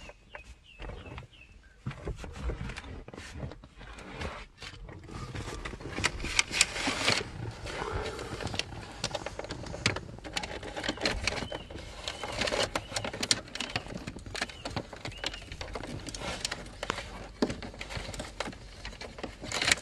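Close handling noise of a cable being pulled and fed along plastic interior trim and carpet: irregular rustling, scraping and sharp plastic clicks, quieter for the first couple of seconds.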